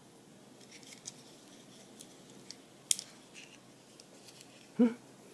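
Scattered small clicks and rustles of a 1:64 die-cast toy car being worked free by hand from the tape and rubber band holding it in its cardboard packaging insert, with one sharp click about three seconds in.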